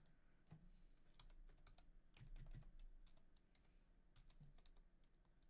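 Faint typing on a computer keyboard: an irregular run of light keystroke clicks as a web address is typed.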